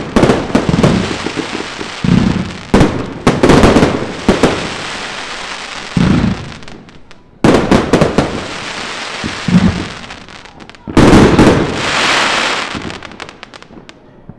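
Fireworks going off: a run of sharp bangs, each trailing into crackling, with a brief lull about seven seconds in. A louder burst about eleven seconds in is followed by a long crackle that dies away near the end.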